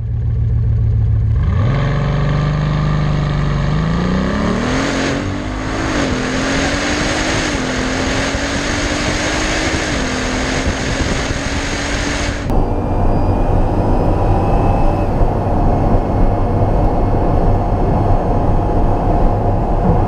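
Bugatti Veyron's 8.0-litre quad-turbo W16 engine revving from idle and accelerating hard: the pitch holds briefly, then climbs and drops back at each of three upshifts. About twelve seconds in the sound changes abruptly to a steadier, noisier drone.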